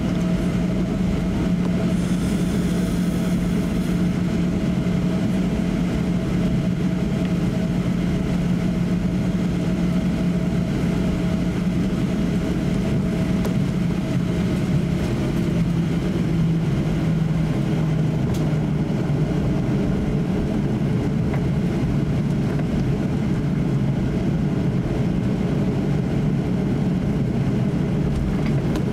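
Cabin noise inside a Boeing 737-800 taxiing, its CFM56 jet engines running at low taxi power: a steady hum with a low drone and a fainter higher tone that fades about halfway through.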